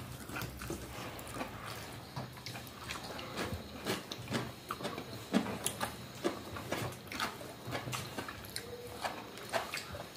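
Close-up eating sounds of dal bhat eaten by hand: wet chewing and mouth smacks, with scattered short clicks and taps of fingers and a spoon against plate and bowl.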